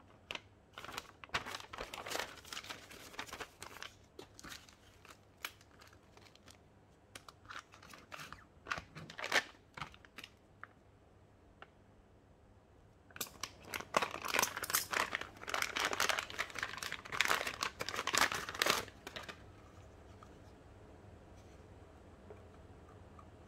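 Paper and plastic packaging crinkling and rustling as the kit's instruction sheet and parts bags are handled, in irregular spells with a longer, louder stretch in the second half; near the end only a faint low hum remains.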